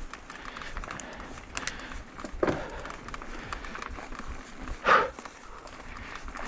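Mountain bike rolling over a trail: tyre noise with small rattles and ticks from the bike, and the rider breathing out hard twice, about two and a half seconds apart.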